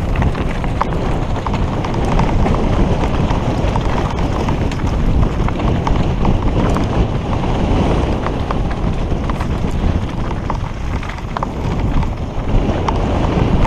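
Mountain bike clattering down a rough, rocky trail at speed: tyres crunching over stones and dirt with a steady run of small knocks and rattles, and wind buffeting the helmet-mounted camera's microphone.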